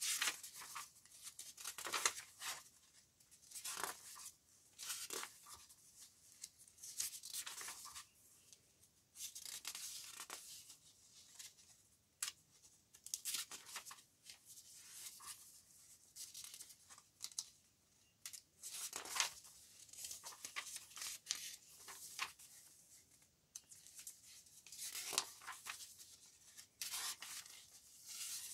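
Paper pages of loose journal signatures being turned and flipped by hand: soft papery rustles and swishes, one every second or so at irregular intervals.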